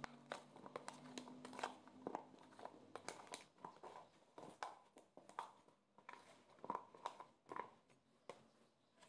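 Metal spoon and fork tossing a rice salad with tuna, corn, peas and mayonnaise in a bowl: soft, irregular clinks and scrapes of the utensils with wet stirring of the rice.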